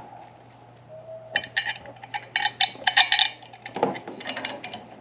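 Loose small metal hardware clinking and rattling: a quick cluster of sharp metallic clinks in the middle, with a few scattered ones near the end, over a steady low hum.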